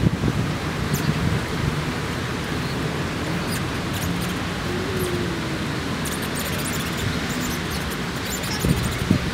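City park ambience: a steady low rumble of distant traffic with a noisy bed, broken by scattered light clicks and taps.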